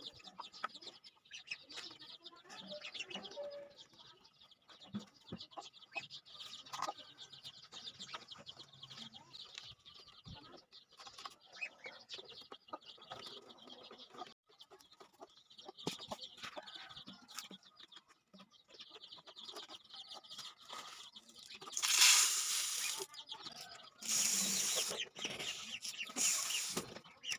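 Chickens clucking and moving about, among many small clicks and scratching sounds; several louder bursts of rustling noise come near the end.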